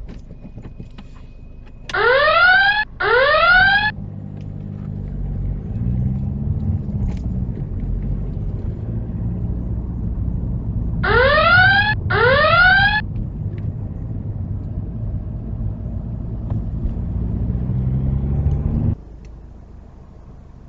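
Car engine heard from inside the cabin, pulling away and accelerating, its pitch rising as it climbs through the revs. Twice, a pair of short tones sweeping upward in pitch sounds over it and is louder than the engine. The engine sound cuts off shortly before the end.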